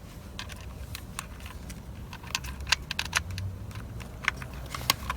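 Irregular light clicks and metallic clinks of small steering-wheel parts and screws being handled and fitted, coming faster in the second half, over a low steady hum.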